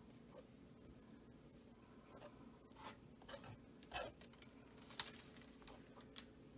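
Faint scrapes of a metal palette knife spreading white base paint across a stretched canvas, with one sharp tap about five seconds in, over a low steady room hum.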